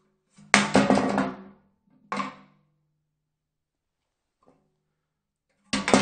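A filled metal trash can crashing: a loud clattering crash about half a second in that rattles on for about a second, then a shorter clatter near two seconds. Another crash begins near the end.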